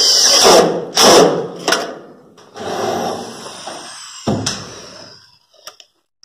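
Power drill-driver fitted with a long extension bit, driving a screw into galvanised steel-frame profile. The motor runs hard at first, then gives two short bursts, then a longer run whose whine slowly falls in pitch, with a sharp metallic clack about four and a half seconds in.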